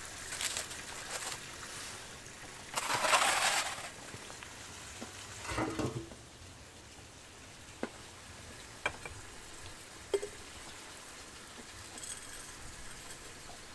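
Aluminium foil crinkling and rustling as foil-wrapped food is handled, with a louder rustle of about a second some three seconds in. A dull knock follows a few seconds later, then a few light single clicks and clinks.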